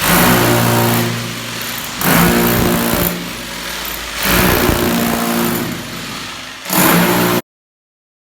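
An electric power tool is cutting channels into a wall for wiring. Its motor note holds steady, and about every two seconds it surges into louder cutting noise as it bites in. It cuts off abruptly near the end.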